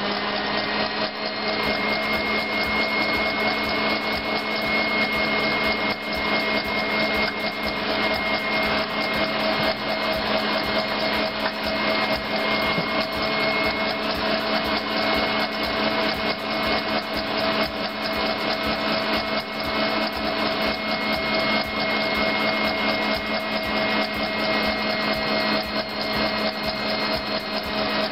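KitchenAid tilt-head stand mixer running steadily on high speed, beating egg whites and sugar into meringue in a stainless steel bowl.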